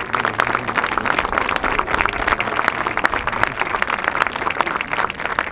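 Large crowd applauding, dense steady clapping.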